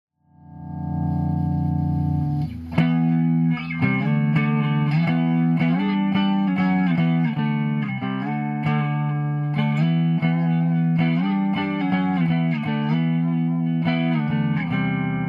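Electric guitar played through a Hughes and Kettner Tubemeister 18 valve amp head: a chord swells in and rings for about two seconds, then steady riffing with frequently changing notes and chords.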